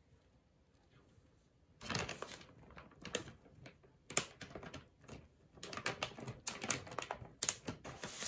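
Guinea pig chewing crunchy food, a quick irregular run of crisp crunches that starts about two seconds in.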